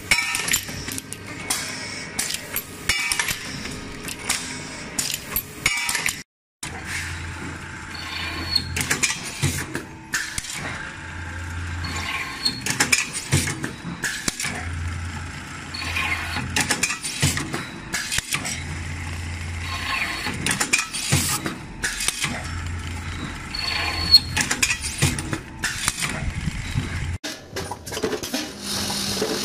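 Factory machinery running: metalworking machines clicking and clanking. Through the middle part a low hum switches on and off about every three to four seconds as a machine works through its cycle.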